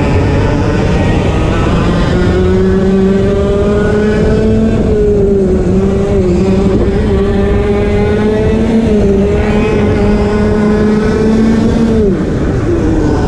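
Two-stroke TAG racing kart engine at high revs, its note climbing steadily as the kart accelerates down a straight, dipping briefly twice as the driver lifts for bends. About twelve seconds in the revs fall sharply under braking, then pick up again.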